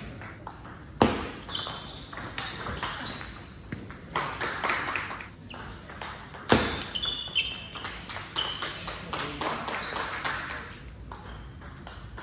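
Table tennis rallies: the plastic ball clicking in quick succession off rubber bats and the table top, with two much louder sharp hits. Short high squeaks come from shoes on the court floor as the players move.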